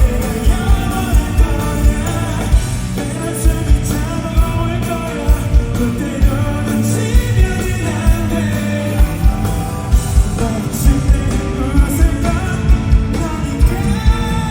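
Live pop-rock song from a band over a concert PA, with a male vocalist singing over a steady, pounding kick-drum beat.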